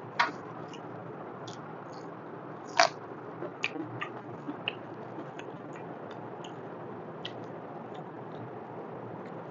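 Close-miked eating sounds: chewing with wet mouth clicks and fingers squishing rice and mutton trotter curry, over a steady hiss. Two sharp smacks, one right at the start and one about three seconds in, are followed by a run of smaller clicks and then a few scattered ones.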